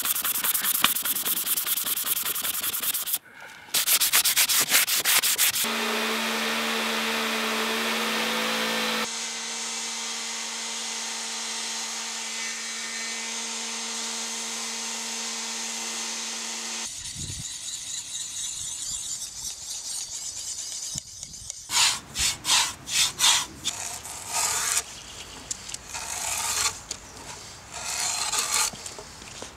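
The rusty steel blade of a drawknife is rubbed by hand with folded sandpaper in steady strokes to take off the rust. A few seconds in, a Milwaukee cordless random orbit sander takes over, running with a steady hum for about ten seconds. Near the end, the drawknife shaves a green pole in quick strokes, about two a second.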